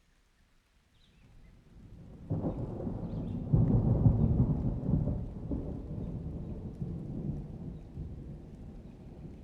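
A thunderclap rumbling in from near quiet, breaking sharply about two seconds in, peaking in a loud crackling rumble a second later and then rolling away slowly: dry summer thunder.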